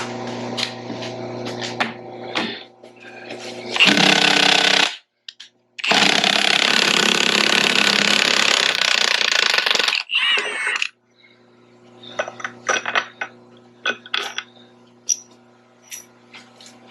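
A hammering power tool run in three bursts: a short one, a long one of about four seconds, and a brief one that winds down, over a steady hum. Scattered clicks and metal knocks follow.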